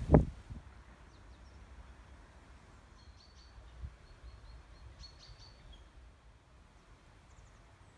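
A single dull thump right at the start, then faint, short, high bird chirps between about three and six seconds in, over a low steady rumble.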